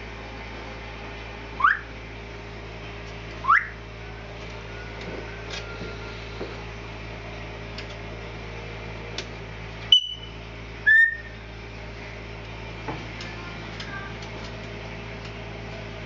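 Black-headed caique giving two short, loud rising whistles about two and three and a half seconds in, then a sharp short call and another brief whistle-like call around ten to eleven seconds, over a faint steady hum.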